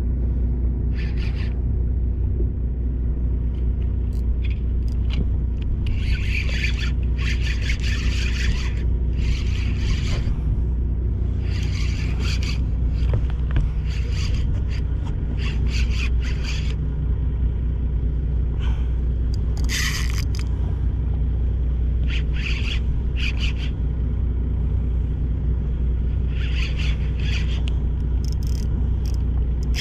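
A boat's engine running with a steady low rumble, with short bursts of water splashing against the hull every second or two.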